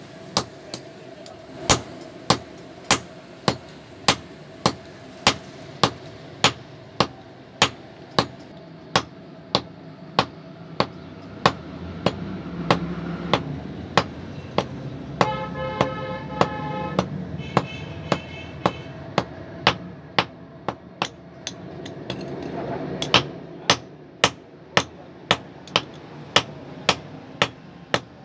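Hand hammer forging a red-hot steel blade on a steel anvil block: steady, evenly spaced blows, a little under two a second.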